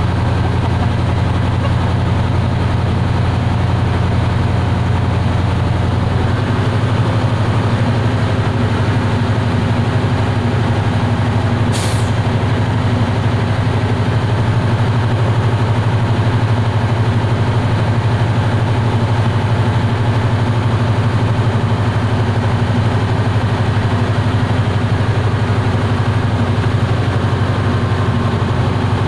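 A heavy engine running steadily with a deep, continuous hum; its tone shifts slightly about six seconds in. A short hiss cuts in about twelve seconds in.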